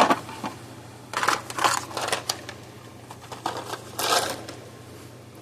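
Hands handling the fence charger and its parts: a sharp click, then several short bursts of clattering and rustling.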